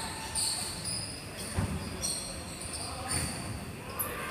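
Indoor court play: a ball thumping on the floor about once a second, with short high squeaks in between.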